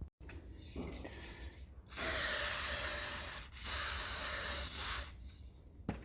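Two steady bursts of aerosol spray, each about a second and a half long, from a can of GT85 penetrating lubricant being sprayed into the rusty compressor cylinder to soak it.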